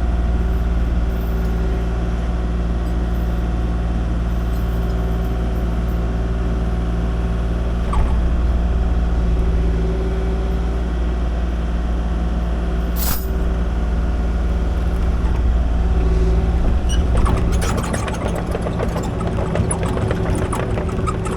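Kubota KX-040 mini excavator's diesel engine running steadily, with a sharp click or squeak a little past the middle and a spell of metallic clanking and rattling over it in the last few seconds.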